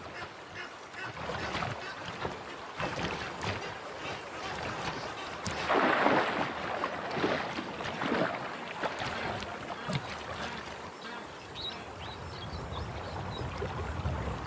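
Water splashing and sloshing as a crocodile moves through shallow river water with a hippo carcass in its jaws, with a louder splash about six seconds in.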